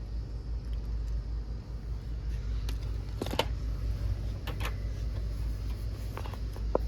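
A steady low rumble with a few short clicks and rattles of merchandise being handled, a pair of them about halfway through and more near the end.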